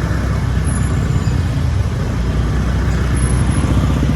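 Loud, steady road-traffic noise of motor vehicles moving off as a traffic jam clears, with a heavy low rumble.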